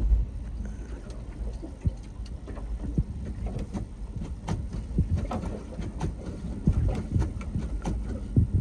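Wind rumbling on the microphone, with scattered clicks and knocks from handling parts on the boat's motor; the engine is not running or cranking.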